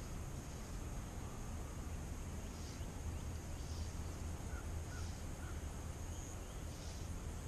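Faint outdoor ambience: a steady high buzz that swells softly about once a second, over a low rumble, with a few faint bird chirps near the middle.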